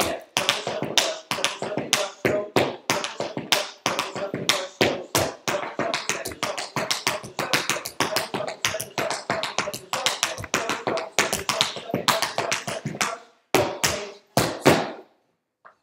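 Tap shoes striking a wooden floor in fast, steady runs of shuffles, brushes, steps and heels: five-count shuffles and crossing shuffles danced without music. The taps stop a couple of seconds before the end after a few last single taps.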